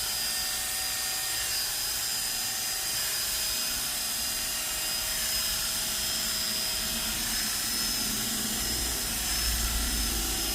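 Small electric motor running steadily with a thin high whine, from the clipper-blade sharpening work.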